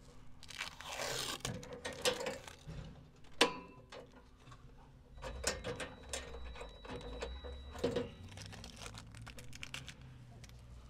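Rustling and handling noises with a sharp click about three and a half seconds in, followed by more scattered clicks and rustles.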